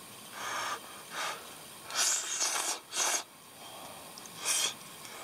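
A person slurping hot udon noodles from a foil nabeyaki udon tray: a run of five short airy slurps, the longest about two seconds in.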